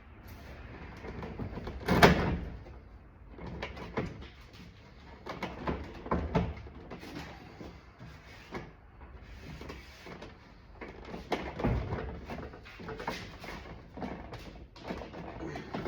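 Car door panel being worked off by hand: irregular clicks, knocks and plastic-and-metal clunks from the panel and door hardware, with one loud clunk about two seconds in.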